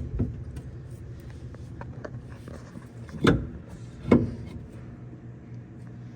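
Two sharp metal clanks about a second apart, from parts of a bus's Torsilastic torsion suspension being worked loose, over a steady low hum.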